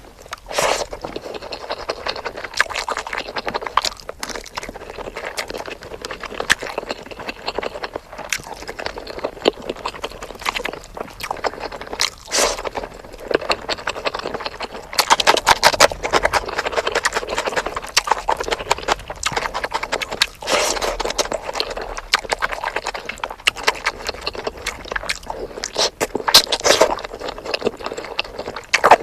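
Close-miked eating sounds of spicy chicken: wet chewing and lip-smacking made of many quick clicks, going on without a break, with louder spells around the middle and near the end.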